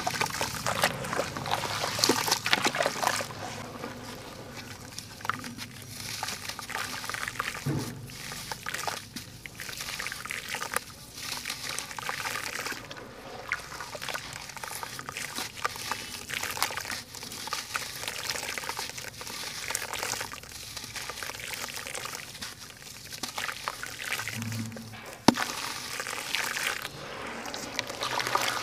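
Hands squeezing and crumbling soaked sand-cement lumps in a basin of water: irregular sloshing and splashing with wet crumbling, and one sharp click near the end.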